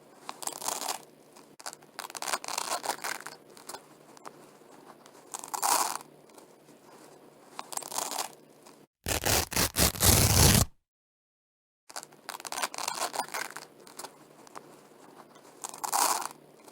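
Velcro hook-and-loop strips being pulled apart by hand in slow, separate scratchy rips of about a second each, with pauses between. About nine seconds in comes a louder, fuller run of quick rips, then a second of dead silence before the slow rips start again.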